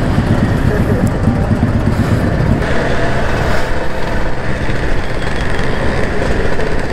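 Motorcycle engine running steadily as the bike rolls slowly through traffic, mixed with the noise of the scooters and cars around it.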